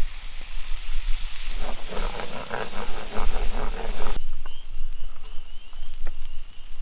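Fish frying in butter in a pan over a campfire, a steady sizzle, with a wavering hum over it for a couple of seconds. About four seconds in the sizzle cuts off to a quieter background with a faint high trill and a few light clicks.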